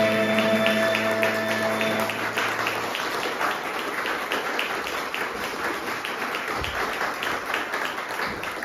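A held final chord of music dies away in the first two to three seconds while the audience claps; after that, only the applause continues.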